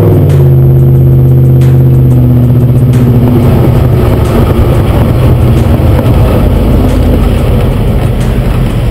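2000 Dodge Dakota 4.7L V8 exhaust heard up close from the rear bumper while the truck drives. The engine note drops shortly after the start, then holds steady, turning rougher with more road noise in the second half.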